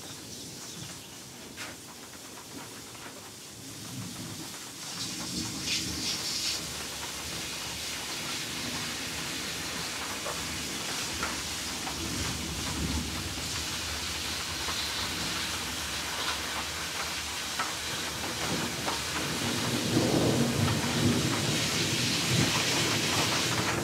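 Heavy rain falling with a steady hiss while thunder rumbles, starting about five seconds in and swelling again near the end, where it is loudest.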